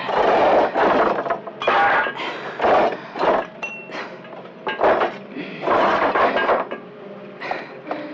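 A run of loud, irregular crashes and clatters of metal and glass objects being knocked about and thrown, some with a brief ringing after the hit.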